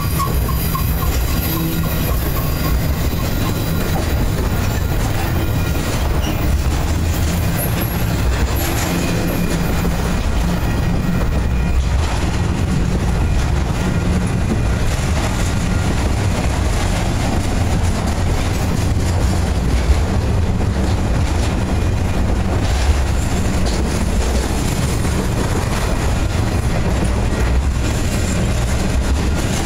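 Union Pacific intermodal freight train's spine cars, loaded with semi-trailers, rolling past at close range: a loud, steady rumble of steel wheels on rail with clickety-clack over the joints.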